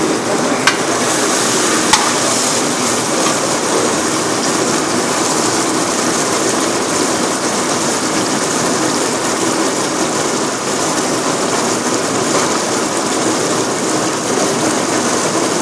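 Steady rushing, hissing noise of a large pot of chicken stew boiling on a gas burner, with two sharp metallic clicks from the ladle against the aluminium pot in the first two seconds.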